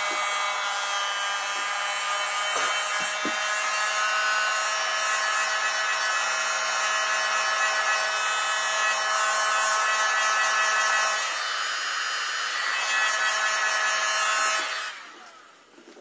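Heat gun running with a steady motor whine over a rush of air, heating the home button bracket to loosen it. The whine dips briefly just past the middle, and the gun switches off near the end.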